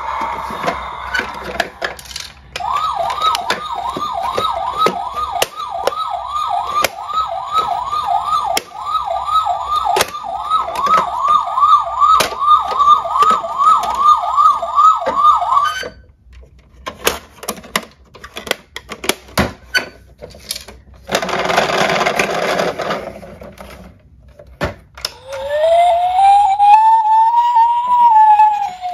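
Dickie Toys battery-powered toy ambulance's electronic siren sounding a fast yelp, rising sweeps about two and a half a second for some thirteen seconds, then cutting off. Plastic clicks and handling noise follow. Near the end comes a single slow wail that rises and falls.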